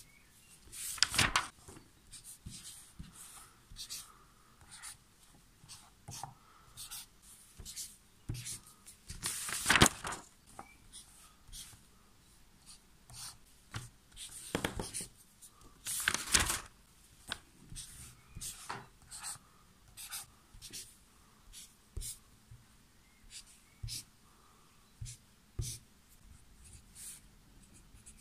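A Stabilo Boss highlighter and then a pen marking answers on the paper pages of a test book: many short scratches and taps, with a few louder, longer paper strokes about a second in, around ten seconds in, and twice in the middle.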